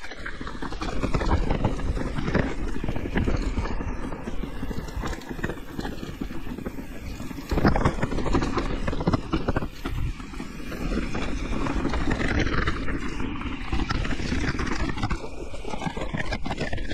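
Electric enduro mountain bike running down a rough trail: tyres on dirt and rocks and the bike rattling over bumps, a dense run of knocks with a harder jolt about halfway through.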